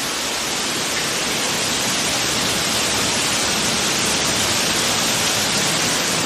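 Floodwater running with a steady rushing hiss.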